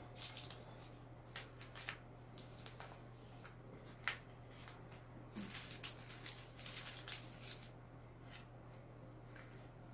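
Paper rustling and scraping as a sheet is handled and folded on a table, in short crisp bursts, with a busier run of rustles about six to seven and a half seconds in. A steady low hum runs underneath.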